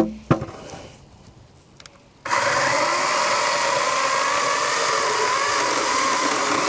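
Two sharp knocks, then a little over two seconds in a 16-inch Wild Badger battery chainsaw starts suddenly and runs steadily, cutting into a round of wood, its pitch wavering slightly under load.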